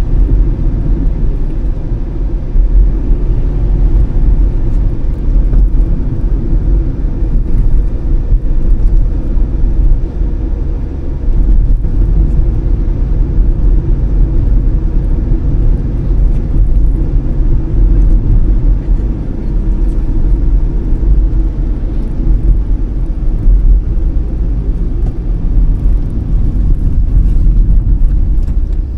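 Car driving along, a steady loud low rumble of road and engine noise with no distinct events.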